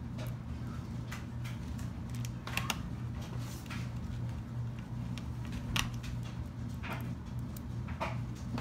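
Small, scattered clicks and taps of a precision screwdriver and tiny screws being driven into a laptop's plastic base, a few seconds apart, over a steady low hum.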